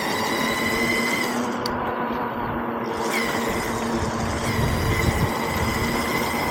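A ridden vehicle's motor whining at a steady high pitch over wind and road rumble. The whine drops away for a moment about a second in, then comes back with a brief upward slide.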